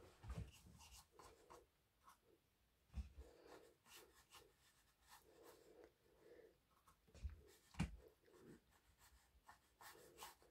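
Faint scratchy strokes of a bristle paintbrush dragging thick acrylic paint across mountboard, in a run of short repeated strokes, with a few soft low bumps in between.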